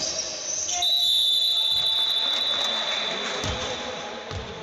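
Scoreboard buzzer sounding one long, high, steady tone that starts about a second in and lasts about three and a half seconds. A basketball bounces a few times on the wooden court under it.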